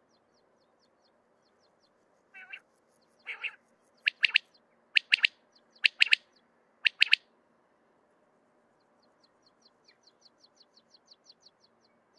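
Male common quail singing: two quieter, lower introductory notes, then four loud, sharp 'pit-pit-dik' phrases about a second apart. A faint rapid high ticking, about five a second, sounds at the start and again near the end.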